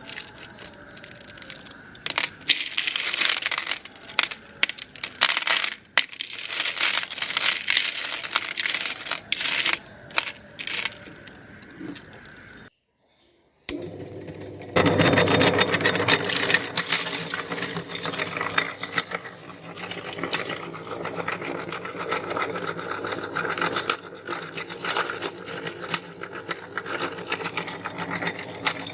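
Electric meat grinder crushing London Dairy candies: irregular cracking and clattering at first, then after a short break a steady motor hum with continuous crunching as the candy is ground.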